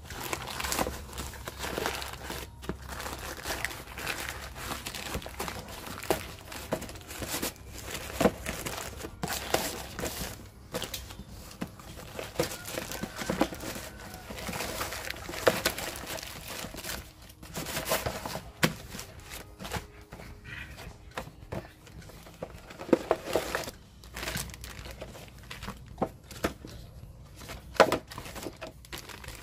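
Plastic courier mailer bag and plastic packaging crinkling and rustling as a parcel is opened and unpacked by hand, in irregular crackles with a few louder rips.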